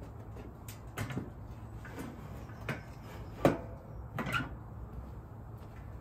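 A handful of short knocks and clunks, the loudest about halfway through: the metal lid of a home-made furnace being lifted and swung open.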